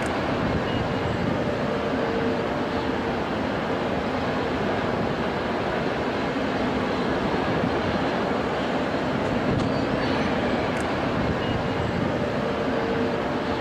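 Airbus A330-243F freighter's twin Rolls-Royce Trent 700 turbofans at takeoff power during the takeoff roll: a loud, steady, unchanging jet noise.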